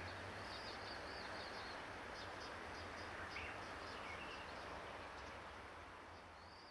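Small birds chirping in short quick series over steady outdoor background noise, the whole fading down toward the end.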